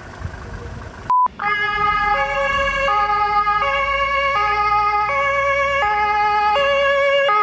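A short steady beep about a second in, then a two-tone emergency-vehicle siren (German Martinshorn) switching back and forth between a lower and a higher tone about every three-quarters of a second.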